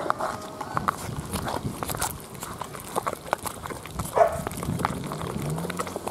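Heavy stone pestle knocking and scraping in a stone mortar, pounding soft cooked toor dal and chana dal into filling, in a run of irregular knocks. A short animal call about four seconds in.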